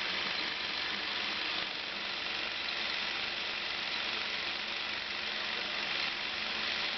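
Bell & Howell Filmosound 156 Model A 16mm sound film projector running with its clutch engaged, motor and film-transport mechanism going at a steady, even mechanical noise.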